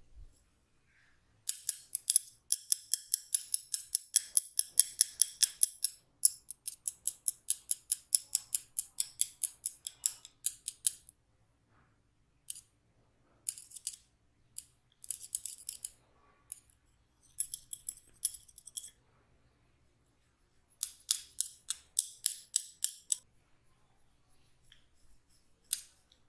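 Hair cracking during an Indian head massage: locks of hair worked between the fingers give runs of sharp, crisp cracks at about six a second. A long run of about nine seconds is followed by shorter bursts with pauses between them.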